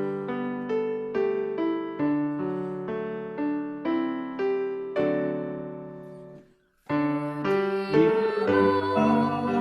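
Piano music: a slow melody over held chords, with notes struck about twice a second, fading out about six and a half seconds in. After a brief gap, a new passage of music begins with a wavering melody line over the piano.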